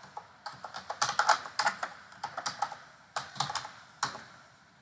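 Typing on a computer keyboard: a run of quick, irregular keystrokes that stops near the end.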